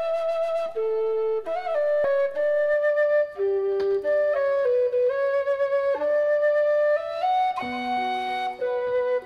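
Background music: a melody of held notes stepping from one pitch to the next, with lower accompanying notes entering near the end.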